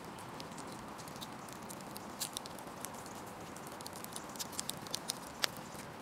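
Hands pressing and pinching a ball of bread dough closed around a meat filling: many small sticky clicks and pats, scattered, with a sharper tick near the end, over a steady faint hiss.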